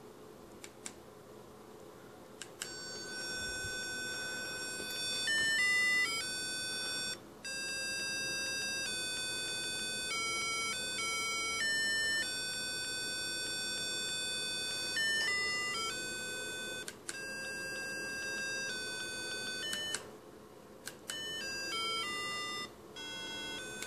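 Home-built AVR microcontroller MIDI player sounding a melody through a small loudspeaker: buzzy electronic tones, one note at a time, stepping from pitch to pitch with short breaks between phrases. A few faint clicks come first, and the melody starts about three seconds in.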